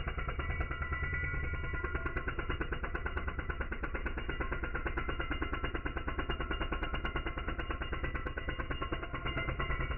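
Power tool cutting out the old mortar joints of a brick wall, its sound slowed down into a low, continuous rumble made of rapid, even pulses.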